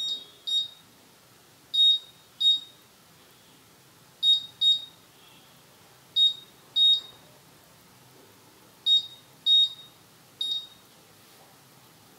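Buzzer of an Arduino Pro Mini milk-boiling alarm beeping: short high-pitched beeps, mostly in pairs, a pair about every two seconds. The beeping signals that the milk has started to boil.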